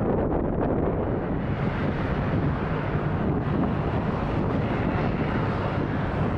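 Steady wind noise buffeting the microphone, with the drone of a small twin-engine turboprop airliner approaching to land.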